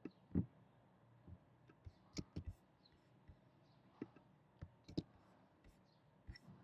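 Faint computer mouse clicks, a dozen or so at irregular intervals, with a quick cluster of three about two seconds in.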